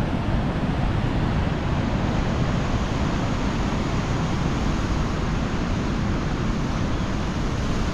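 Steady wind noise on the microphone, strongest low down, over the wash of surf breaking on the rocks below.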